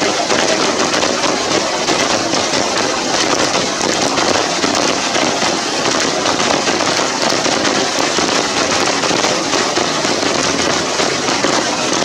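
Steady rain falling, a dense crackling patter of many drops that does not let up.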